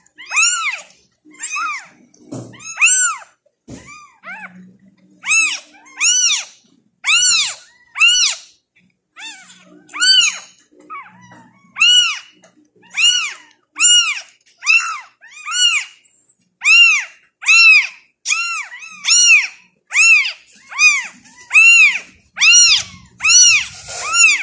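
Very young tabby kittens mewing over and over during bottle feeding, about one to one and a half high cries a second, each rising and then falling in pitch.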